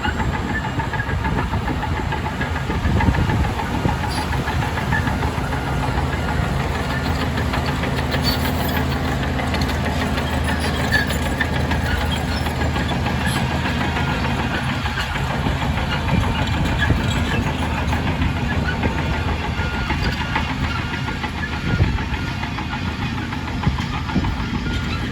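Heavy diesel engine of earth-moving machinery running steadily under work, with a few sharp clanks along the way.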